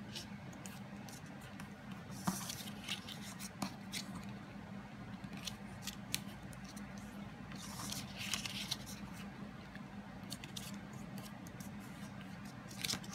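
Greeting card stock being folded and creased by hand: papery rustling and crinkling with sharp little ticks as the folds are pressed down, in a few clusters with quieter stretches between.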